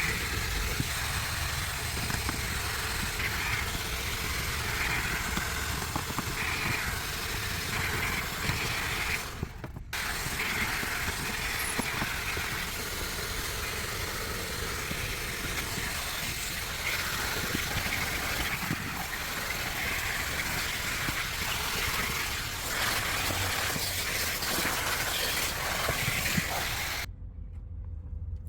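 Vacuum cleaner running steadily as it sucks dirt from a car's interior carpet. It dips briefly once and then cuts off suddenly near the end.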